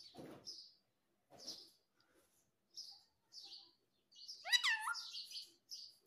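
Rose-ringed parakeet giving short, high chirps every second or so, with two brief scratchy noises near the start. About four and a half seconds in comes one louder squeak that rises in pitch.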